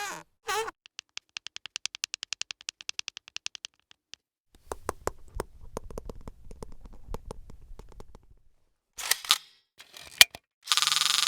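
A series of separate cartoon sound effects: a fast, even string of clicks for about three seconds, then an irregular clatter of clicks over a low rumble, a few sharp snaps, and a loud hiss with a steady tone in it starting near the end.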